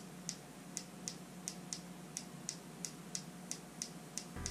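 Light, evenly spaced clicks, about two or three a second, stopping near the end: a Lume Cube 2.0 brightness button pressed over and over to step the light down to its lowest setting.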